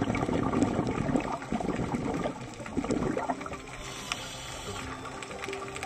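A scuba diver's exhaled bubbles gurgling out of the regulator for about three seconds, heard underwater, then quieter.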